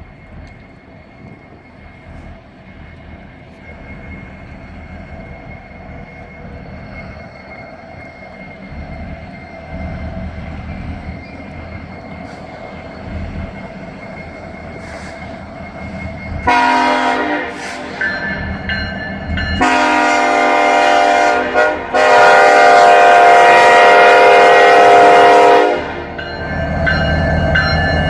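BNSF diesel freight locomotive approaching, its engine rumble growing louder, then sounding its horn in three blasts of a several-note chord, the last the longest. The locomotive then passes close with loud engine rumble and rail noise.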